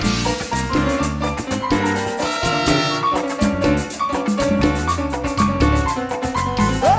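Cumbia band playing live in an instrumental passage of a cumbia medley, with bass notes and drums keeping a steady rhythm under a held melody line.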